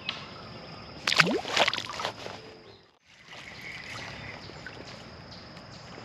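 A small smallmouth bass let go back into the river: a brief splash and slosh of water about a second in, then gentle steady water sound.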